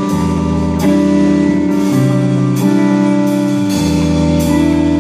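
Band music with guitars and drums: sustained chords changing about every second, with a cymbal or drum hit on each change.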